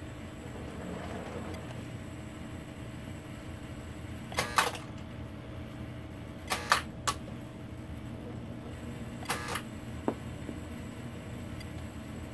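Lionel O-gauge #44 missile launch train running slowly on three-rail track: a steady low electric hum with sharp metallic clacks from the wheels over the rails, in small groups about four and a half, six and a half to seven, and nine and a half seconds in, and one lighter tick about ten seconds in.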